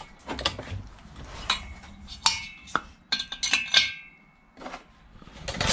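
Metal clinking and knocking as an air-cooled VW cylinder head and its valves are handled: a string of separate sharp clinks, several ringing briefly about three to four seconds in, and a louder knock at the end.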